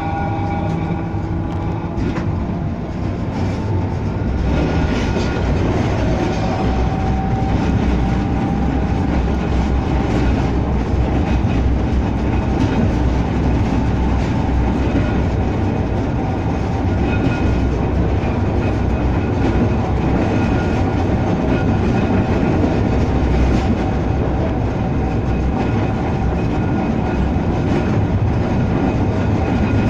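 Blackpool heritage tram no. 715 running, heard from inside the passenger saloon: a steady rumble of wheels on the rails, a faint steady whine above it, and occasional clicks.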